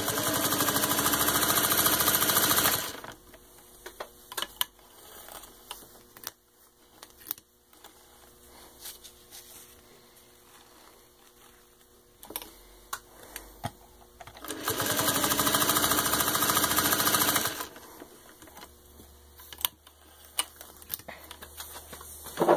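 Singer 301-2 sewing machine stitching through four layers of thin leather. It runs in two steady bursts of about three seconds each, spinning up quickly to full speed. In the pauses between there are scattered light clicks and knocks.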